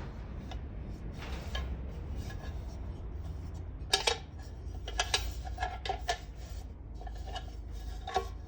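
Metal clinks and knocks from handling a hangou mess tin: one sharp clink about four seconds in, several more in quick succession a second later and another near the end, each with a brief ring. A steady low rumble sits underneath.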